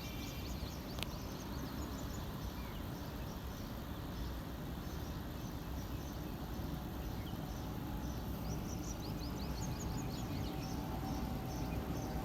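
Small birds chirping repeatedly over a steady low rumble of outdoor background noise, with a quicker run of chirps about two-thirds of the way through.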